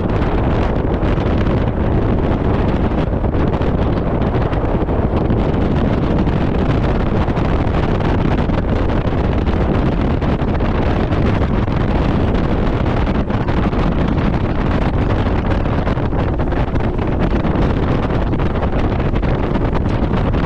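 Loud, steady wind rush on the microphone of a bass boat running at speed, mixed with the boat's motor and hull noise.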